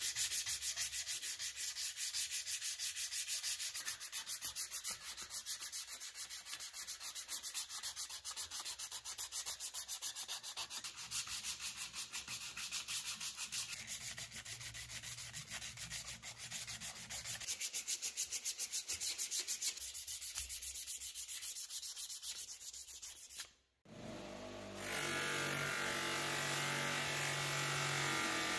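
Sandpaper rubbing a thin brass strip in rapid, even back-and-forth strokes. Near the end the sanding stops, and a bench polisher's buffing wheel starts up and runs steadily as the brass is held to it.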